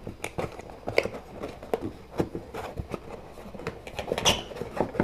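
Cardboard packaging being handled: irregular scrapes, taps and rustles as a small inner box of plastic-wrapped accessories is worked out of the outer box, with a louder knock about four seconds in.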